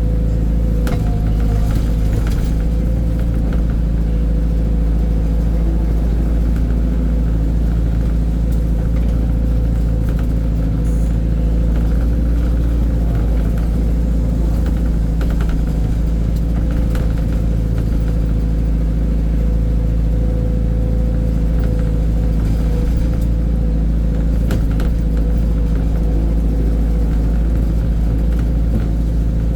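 Heavy diesel engine of a dump truck or excavator running steadily at an even speed, with a strong low hum and a few faint knocks.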